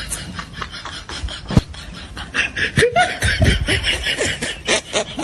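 Close, stifled snickering laughter, with short vocal bursts that are loudest a few seconds in, over a fast, steady run of clicks.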